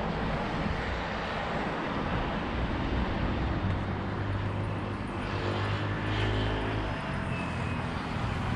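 Wind rushing over the microphone while riding a bicycle, a steady noise, with a low steady hum through the middle.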